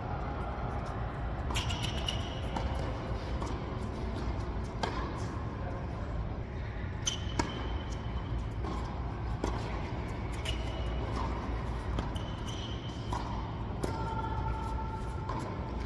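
Tennis rally in a large indoor hall: tennis balls struck by racquets and bouncing on the hard court, sharp pops every second or two, with short squeaks between shots over a steady low hum.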